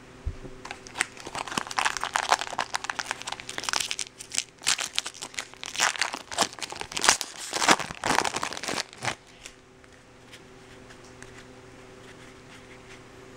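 Foil wrapper of a Bowman baseball card pack being torn open and crinkled by hand: a run of crackling rustles that stops about two-thirds of the way through.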